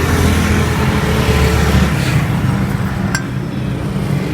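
A motor vehicle engine running close by amid street traffic, its low hum dropping away about two seconds in, with a single sharp metallic clink about three seconds in.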